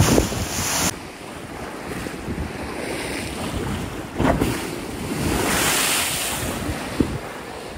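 Choppy lake waves sloshing and breaking close to the microphone, with wind buffeting it. A sharp splash comes a little past four seconds in, and a longer rushing wash of water follows around six seconds.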